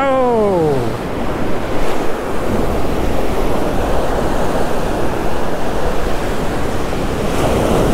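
Ocean surf breaking on a sandy beach, a steady rush of noise, with wind blowing across the microphone.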